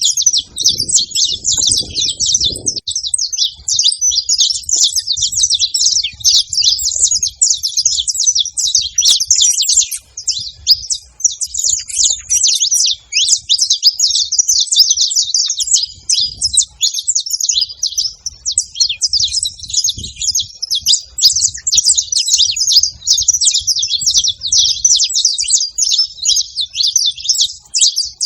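A flock of saffron finches chirping together, many short, high chirps overlapping without a break.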